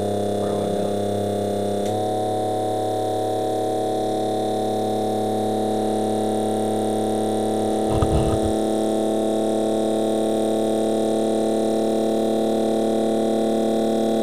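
Steady electrical hum from a small electric motor rig running off supercapacitors, made of several steady tones that shift slightly about two seconds in. A brief low thump comes about eight seconds in.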